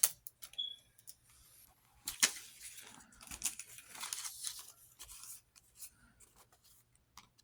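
Paper being handled: rustling and crinkling of paper bills and envelopes, with several sharp clicks and snaps. The loudest snap and rustle come about two seconds in.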